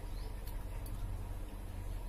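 A hand mixing rice on a steel plate gives a few faint short clicks over a steady low hum.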